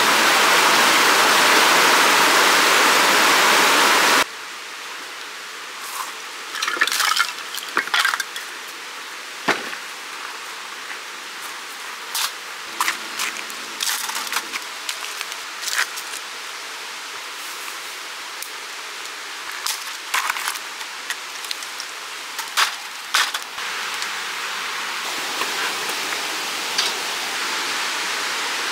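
Rushing stream water for the first four seconds, cutting off suddenly. Then scattered sharp clicks, knocks and crunches of split kindling and pine cones being set into a small metal fire stove, with a steady hiss coming back near the end.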